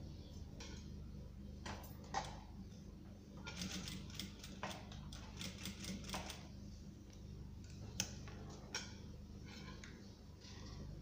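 Industrial sewing machine stitching slowly in short runs: a steady low hum under irregular clicks, with a quicker run of ticks in the middle.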